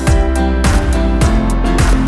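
Background music with a steady beat: plucked guitar over a thumping kick drum.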